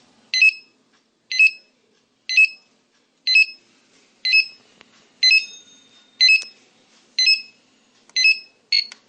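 Electronic alarm-clock buzzer of a microcontroller real-time-clock circuit sounding its alarm: a short two-tone beep about once a second, ten in all, the last one cut short near the end.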